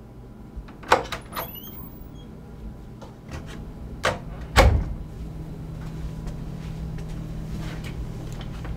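Several sharp knocks, the loudest a heavy thump about halfway through, over a steady low hum.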